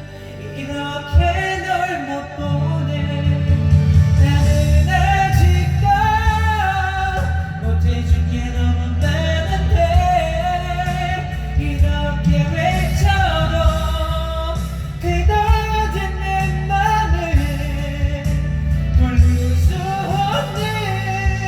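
A Korean pop song playing, with a solo voice singing long held, bending notes over full band accompaniment.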